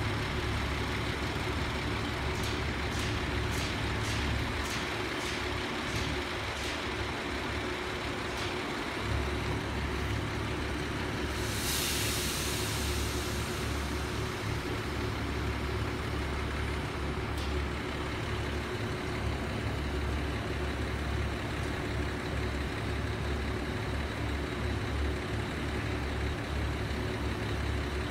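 KiHa 75 diesel railcar engine idling with a steady low hum. A run of about a dozen clicks comes early on, and about twelve seconds in there is a short hiss of released compressed air.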